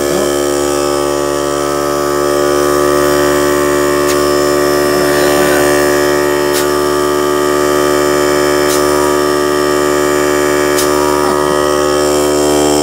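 Small electric air compressor running steadily and filling its tank on a test run, with a loud, even motor hum.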